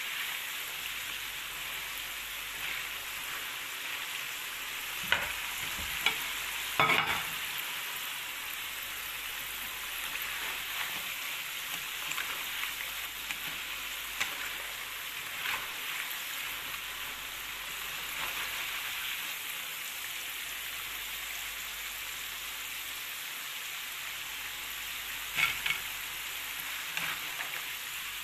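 French fries deep-frying in hot oil, a steady sizzle. A spoon scoops through the pan, with a few sharp knocks a few seconds in and again near the end.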